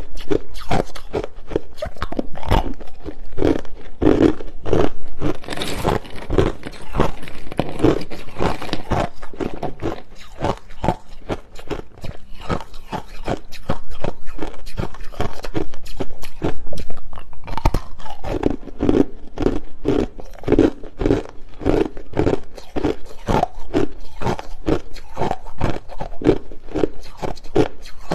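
Clear, hard crushed ice being bitten and chewed close to the microphone: a fast, continuous run of sharp crunches.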